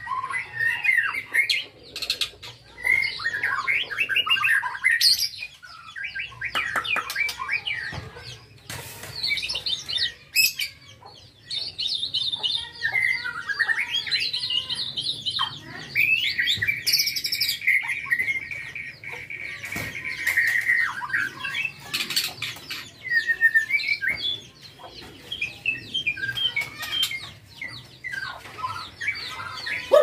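Young white-rumped shama singing a long, varied run of whistles, warbles and chattering phrases, with a steady trill held for several seconds past the middle. Sharp clicks are scattered between the phrases.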